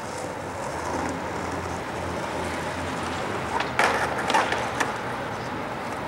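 Skateboard wheels rolling on asphalt, then a quick run of sharp clacks and scrapes between about three and a half and five seconds in as the board hits and rides over a curb block and lands back on the pavement.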